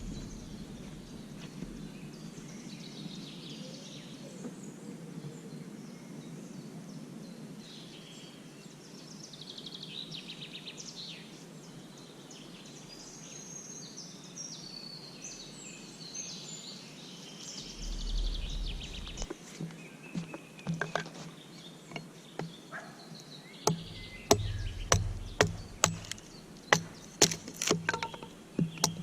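Small birds chirping over a woodland background, then, in the last few seconds, a string of sharp knocks repeating about one to two times a second.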